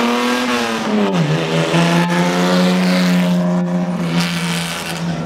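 1934 Riley MPH sports car driving past under power, its engine note dropping in pitch about a second in and then holding steady as the car pulls away.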